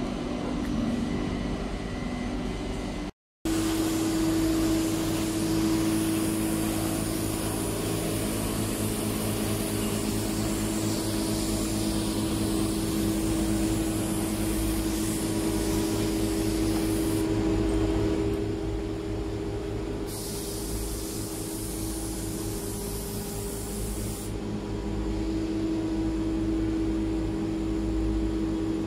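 Compressed-air spray gun hissing as it sprays paint, over the steady hum of an air compressor running. The spray hiss stops for a few seconds twice, about two-thirds of the way through and again near the end.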